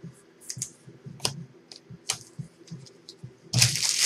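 Trading cards being handled: scattered light clicks and taps, then a loud papery rustle starting about three and a half seconds in.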